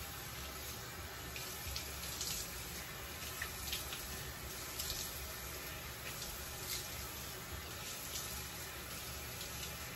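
Water running steadily from a bathroom sink tap, with light splashes every second or so as hands scoop water up to rinse face wash off the face.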